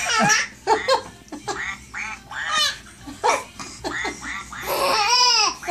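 A baby laughing in a string of short, quack-like bursts, with one longer laugh near the end.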